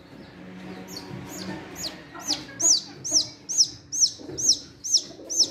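Baby chick peeping loudly and over and over in the hand, a run of high, downward-sliding peeps about three a second that grows louder after the first couple of seconds: distress calls at being held and handled.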